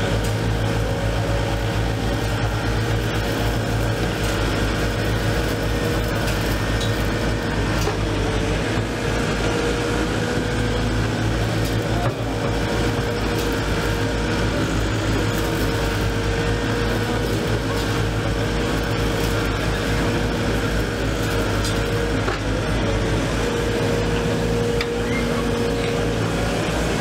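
Diesel engines of a Wacker Neuson EW 100 wheeled excavator and a Kubota KX085-5 midi excavator running steadily while their hydraulics work the arms and a hydraulic sweeper brush, with a steady hum over the engine drone.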